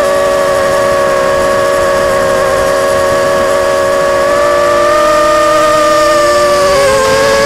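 Electric motors and propellers of a low-flying radio-controlled model aircraft, whining steadily at several close pitches that waver as the throttle changes; the pitch dips about five seconds in and rises again near the end.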